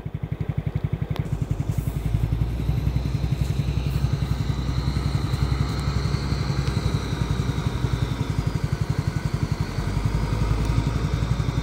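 An engine running steadily with an even, rapid low chugging, and a faint high whine that rises and falls in the middle.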